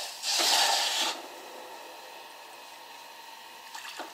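Water poured from a glass bowl into a steel pot of jaggery pieces: a light knock, then a splashing pour lasting about a second. Near the end a little more water runs in.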